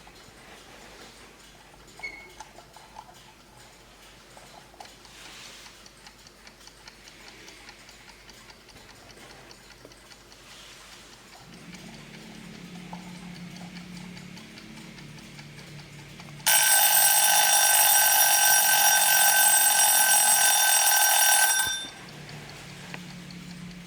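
Kitchen-timer alarm of a 1960s Schatz Elexacta ceramic wall clock ringing loudly and steadily for about five seconds. It starts abruptly past the middle and stops sharply. Before it there is faint ticking and a low hum.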